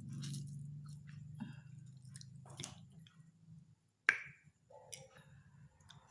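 Mouth sounds of someone eating a raw lemon: chewing and sucking with small wet clicks, and one sharp click about four seconds in.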